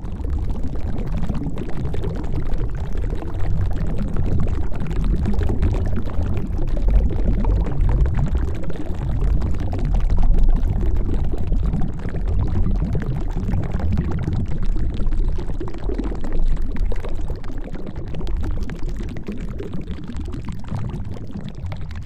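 Underwater ocean ambience: a steady, low rush of water with a dense, fine churning texture.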